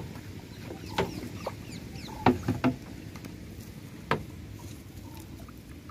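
Fishing net being hauled and shaken over the side of a small boat: water splashing and dripping off the net, with a handful of sharp slaps and knocks about one, two and a half and four seconds in.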